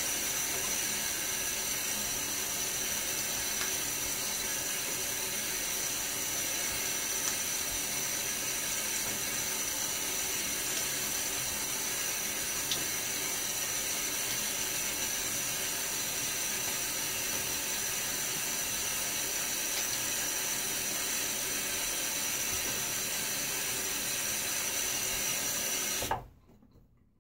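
Bathroom tap running steadily into a sink for a rinse after shaving, shut off about a second before the end.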